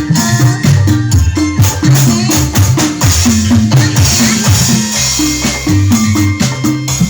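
Loud music with a heavy bass line and percussion, played through a sound system under test.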